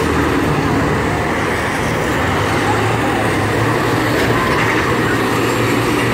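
Several school buses racing together around a figure-eight track: a steady, deep drone of their engines at speed that strengthens a little about halfway through.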